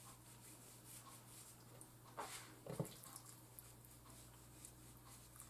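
Near silence: room tone with a faint low steady hum and a couple of faint, brief soft sounds a little over two seconds in.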